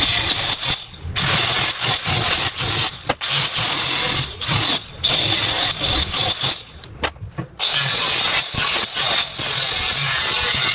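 A handheld power tool running in repeated short bursts with a high whine, stopping and starting every second or so.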